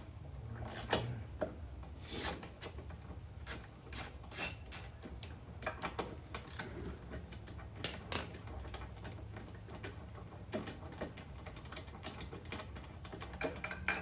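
Ratchet wrench clicking, with metal tool clinks, as the old spark plug is worked loose from the push mower's engine: a run of irregular sharp clicks.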